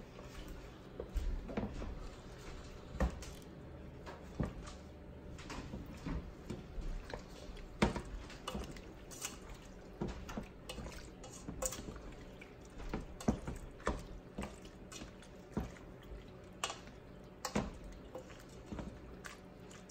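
A spoon stirring cooked macaroni and cream cheese in a stainless steel pot: wet squishing with irregular taps and scrapes of the spoon against the pot.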